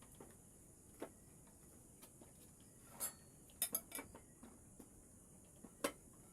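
Light clinks and taps from small metal objects being handled: one about a second in, a quick cluster around the middle, and one near the end, over a faint hiss.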